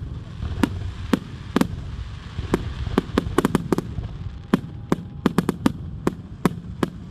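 Fireworks display going off: an irregular series of sharp cracks and bangs, some coming in quick clusters, over a continuous low rumble.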